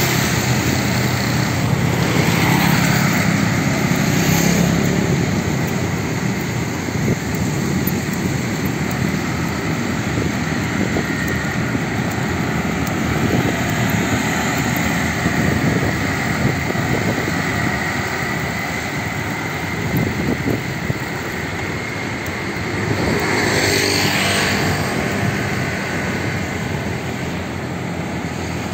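Wind rushing and buffeting over the microphone of a phone carried on a moving bicycle, over steady road and traffic noise, with a brief swell near the end.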